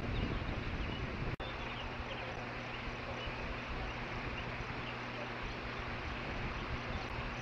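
Steady outdoor background noise of wind and distant traffic or machinery, with a low engine hum settling in after a momentary audio dropout about a second and a half in, and faint, scattered bird chirps.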